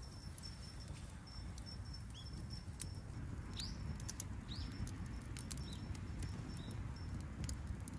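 Wood fire crackling, sparse sharp pops and ticks over a low rumble, with a few short high chirps in the middle of the stretch.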